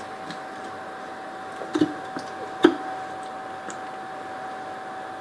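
Two light knocks from a plastic squeeze bottle of mayonnaise being handled and squeezed over bread rolls, about two and two and a half seconds in. A steady faint hum runs underneath.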